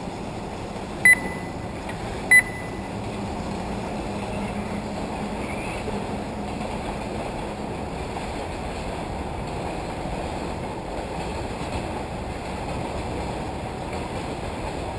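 Two short, identical electronic beeps about a second apart near the start, typical of a race lap-counting system registering RC buggies crossing the line, over steady track-side noise.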